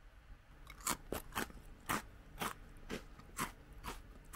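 Crisp Glico Cheeza cheese crackers being chewed: a run of sharp, dry crunches, about two a second, beginning just under a second in.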